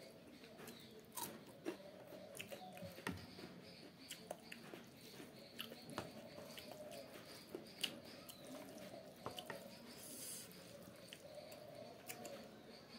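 Eating sounds from a bowl of pork and Maggi noodles: scattered light clicks of a spoon and fork against the bowl, with chewing and mouth clicks. There is a short breathy sound about ten seconds in.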